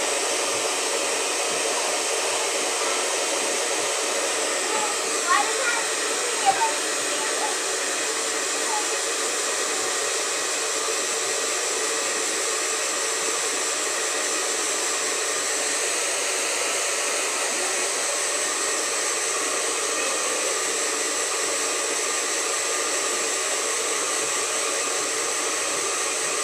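Handheld hair dryer running steadily on one setting: a constant rush of air with a faint steady hum in it.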